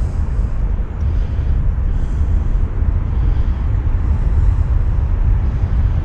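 Low, uneven rumble of wind buffeting an outdoor microphone, with no engine tone in it.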